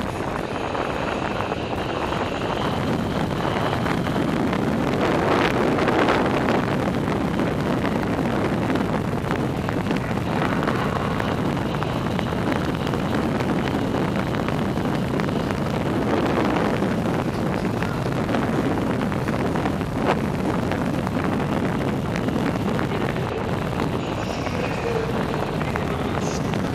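Steady rush of wind over the microphone of a camera riding a track bike at speed around a banked wooden velodrome, mixed with the hum of tyres on the wooden boards.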